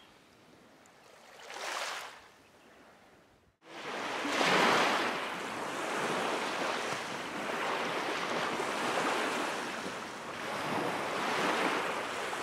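Small lake waves washing onto a sandy beach, a steady hiss that swells and eases every couple of seconds, with wind on the microphone. It comes in abruptly about three and a half seconds in, after a few seconds of near quiet broken by one soft whoosh.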